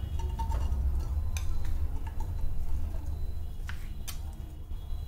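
A metal spoon clicking and scraping against a steel bowl as solid ghee is scooped out into a nonstick pan: a few scattered short clicks over a steady low rumble.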